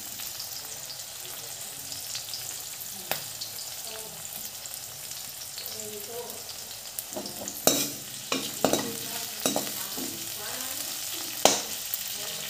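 Sliced onions, garlic and green chillies sizzling steadily in oil in a blackened wok, softening. A perforated steel spoon stirs them, scraping and knocking against the pan now and then, with a cluster of knocks in the second half and the sharpest about eight and eleven and a half seconds in.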